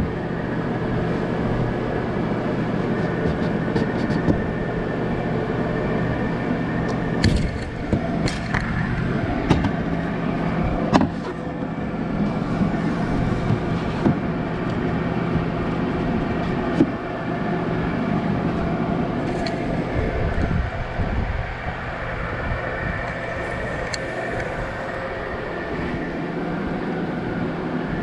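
A steady mechanical hum runs throughout, under scattered light knocks and taps of MDF parts being handled and fitted into the enclosure.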